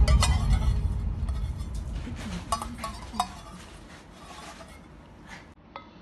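A few light clinks and taps on a stainless steel bowl, over a low rumble that fades away.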